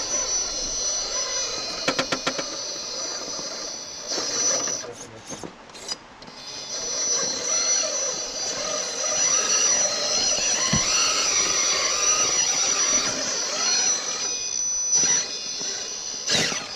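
A 1:10 scale RC rock crawler's electric motor and drivetrain whining as the truck creeps over rock. The whine stops briefly about five seconds in, with a few sharp clicks from the truck against the rock.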